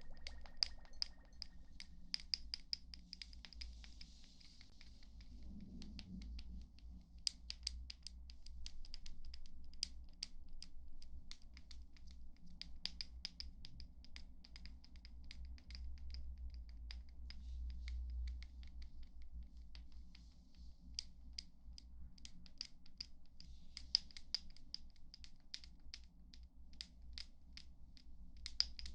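ASMR trigger sounds: quick, light tapping and scratching close to the microphone, many irregular small clicks a second with brief pauses, over a faint low hum.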